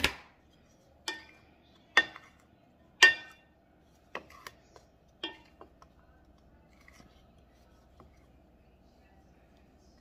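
A wooden fork knocking against a glass mixing bowl about once a second, each knock with a brief ring, as flour is tossed over a pig's foot for dredging. After about five seconds the knocks give way to a few faint taps.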